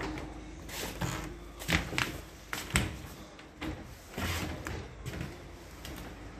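Scattered knocks and clunks, several irregular strokes with the loudest a little under three seconds in, over low background noise.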